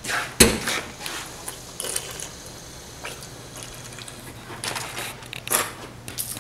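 A sharp knock about half a second in, then a stainless steel drinking fountain running while someone drinks from it, with a faint hiss of water and wet drinking sounds near the end.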